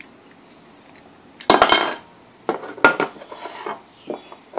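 A phone charger's plastic shell and circuit board being handled as it is taken apart: a burst of hard clattering and clinking about a second and a half in, then a few sharper clicks and short rattles.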